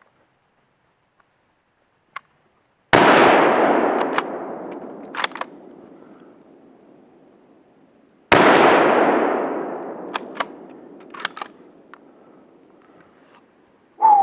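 Two rifle shots about five and a half seconds apart, each followed by a long rolling echo that fades away over several seconds. A few short sharp clicks come between and after the shots.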